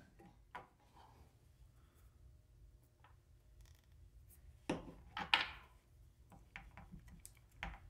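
Faint scraping and light clicking of a wooden stir stick and a small plastic cup of silicone rubber as pigment is dripped in, with a few louder clicks and knocks about five seconds in and another near the end.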